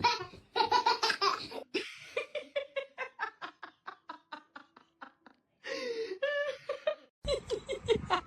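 Hearty human laughter in bursts, including a long run of quick, rhythmic ha-ha pulses through the middle; it breaks off about seven seconds in and starts again shortly after.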